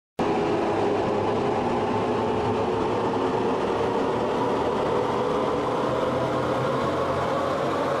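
Cinematic riser sound effect: a dense, noisy synthesized swell that cuts in abruptly just after the start and holds at a steady loudness, heaviest in the low-mid range.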